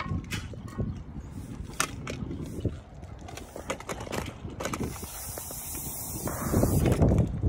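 Metal pole clicking, knocking and scraping as it is lowered from hanging a nest box, over low rumbling handling noise that grows louder near the end.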